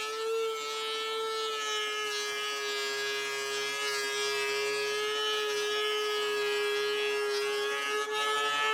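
DeWalt 735X thickness planer running with a steady high whine from its three-knife cutterhead while a board feeds through. The hiss of cutting is present throughout, and the pitch sags slightly under the load.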